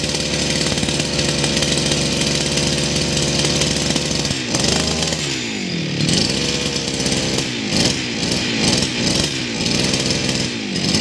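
52cc two-stroke petrol brush cutter engine running, steady for about four seconds, then revved in quick repeated blips, the pitch dropping back after each.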